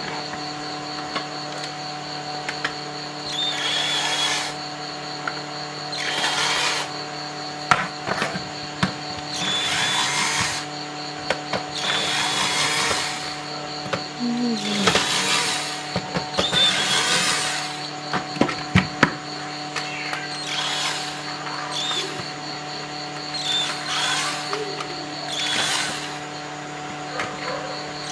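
A small electric screwdriver or drill running in short bursts of about a second, repeated every two to three seconds, as it opens up an electrical outlet for repair, with clicks of parts being handled between the bursts. A steady hum runs underneath.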